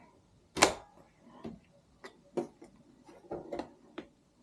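Irregular clicks and light knocks of 3D printer parts being handled and fitted during assembly, with one sharp click just over half a second in and about half a dozen fainter ones after it.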